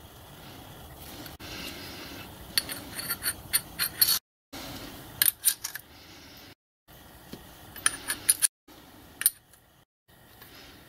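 Metal burner tubes clinking and tapping against each other and the manifold as they are handled and pushed into place, in several short bursts of sharp clicks, broken by a few brief dead gaps.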